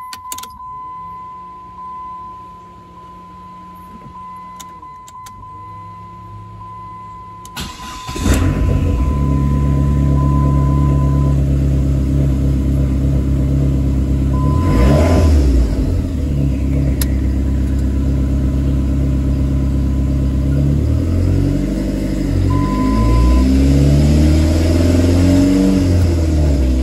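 Dodge Neon SRT-4's turbocharged 2.4-litre four-cylinder being started for the first time after a high-flow fuel pump swap: a quiet stretch with a steady chime tone and a low hum, then the engine catches about eight seconds in and runs loudly, revved up and down a few times near the end.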